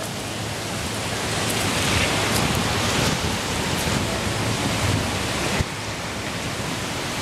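Gusting wind rushing over the microphone: a steady, loud noise that swells over the first couple of seconds and drops off abruptly about five and a half seconds in.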